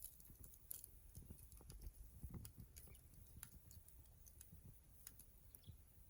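Faint, irregular crackles and small snaps of a small wood fire burning.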